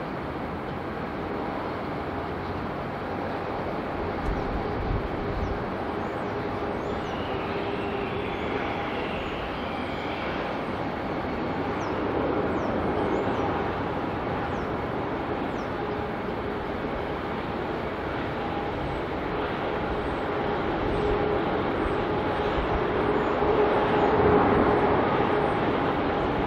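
Distant jet engine noise from a landing Boeing 787-9 airliner: a steady rumble with a faint whine, swelling near the end, mixed with wind on the microphone. Small birds chirp faintly throughout.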